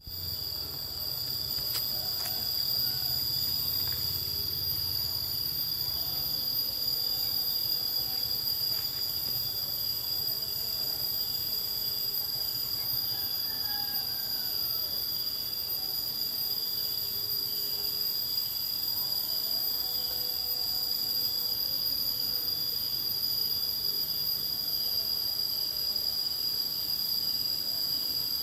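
Insects chorusing: a continuous high-pitched, shrill drone of several steady tones, with a quicker pulsing trill beneath it.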